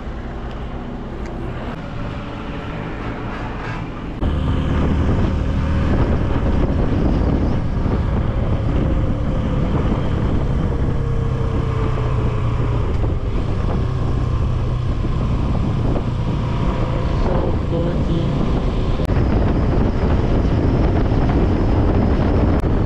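Motorcycle engine running on the move, with wind noise on the microphone. The engine and wind get markedly louder about four seconds in.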